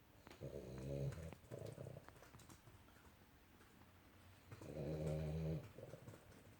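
Dog snoring in its sleep: two drawn-out snores about four seconds apart, the first broken briefly in the middle.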